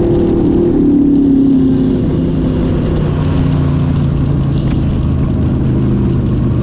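Dirt modified race car's V8 engine heard from inside the cockpit as the car comes off the throttle and slows. The engine note falls steadily over the first two to three seconds, then settles into a lower, steady run.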